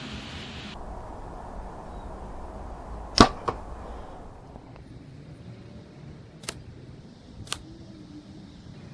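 An arrow shot from a bow striking a 3D archery target refilled with expandable foam: one sharp, loud thwack about three seconds in with a lighter knock just after it. Two fainter sharp clicks follow a few seconds later.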